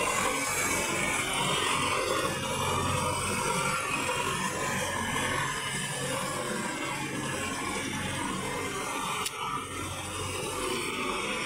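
Tractor diesel engine running steadily under load while its rear rotavator churns through water and mud, puddling a flooded paddy field.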